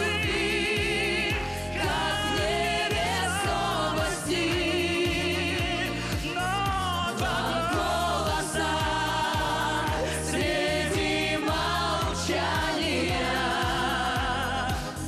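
A live pop duet: a woman's voice sings with vibrato into a microphone over a band backing with a steady beat.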